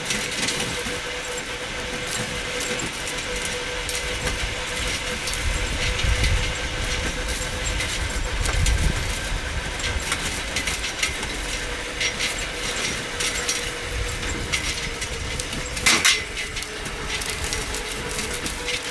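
Homemade motorised rail vehicle rolling along an old, weed-grown railway track: a steady rushing noise of the wheels on the rails with a constant whine, many small clicks and rattles, and a louder knock about sixteen seconds in.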